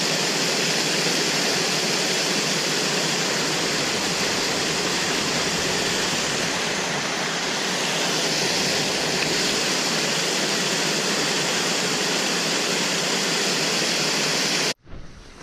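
Water pouring over a small concrete dam spillway into the pool below: a loud, steady rush of falling water close by. It cuts off abruptly near the end.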